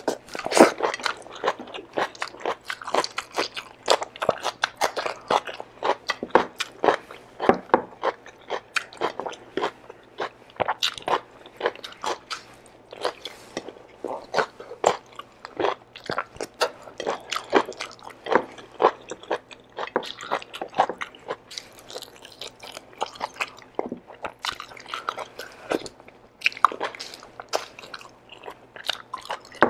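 Close-miked mouth sounds of a person eating oxtail kare-kare with rice and vegetables by hand: chewing, biting and lip smacks in quick, uneven clicks, several a second.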